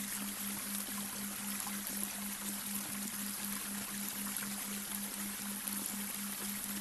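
Babbling brook: a steady, even rush and trickle of running water. Underneath, a low steady hum pulses evenly about three times a second, which is the delta binaural-beat tone.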